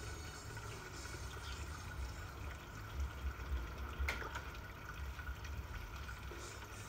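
Koi pond water trickling and lapping as the koi stir the surface, over a steady low rumble. One sharp click about four seconds in.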